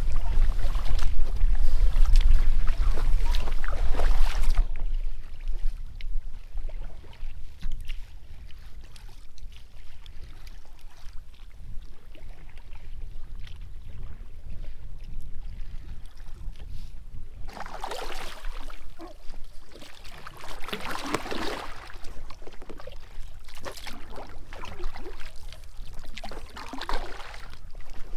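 Kayak paddle strokes: the blade dips and splashes in the water, with drips between strokes, and a few clearer splashes in the second half. A loud low rumble, like wind on the microphone, covers the first four or so seconds.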